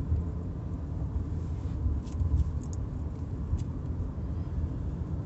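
Steady low road and engine rumble of a car driving along, heard inside the cabin, with a few faint clicks around the middle.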